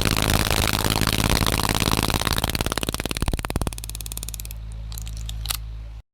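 A mechanical rattle over a steady low hum, the rattle slowing into separate ticks and dying out partway through, leaving the hum with a few clicks before the sound cuts off suddenly.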